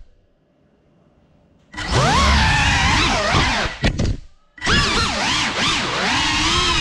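Cinelog 35 cinewhoop quadcopter's motors whining, their pitch rising and falling with the throttle. The motors cut out at the start, leaving about a second and a half of near silence. They spool back up, cut again briefly around four and a half seconds in, and then run on.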